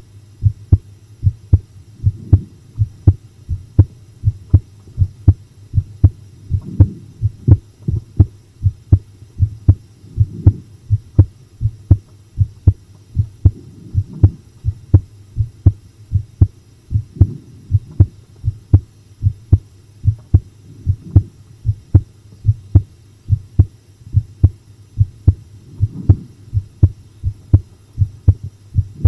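A person's heartbeat recorded close up: a steady, even run of deep thuds. A soft low swell rises under the beats every three to four seconds.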